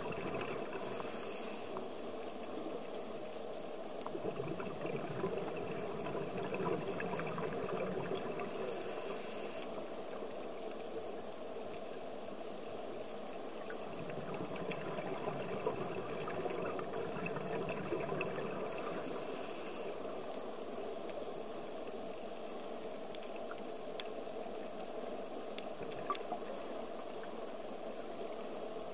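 Underwater sound picked up through a camera's housing on a scuba dive: a steady rushing water noise, with the diver's exhaled regulator bubbles swelling up in long, deeper surges about every ten seconds.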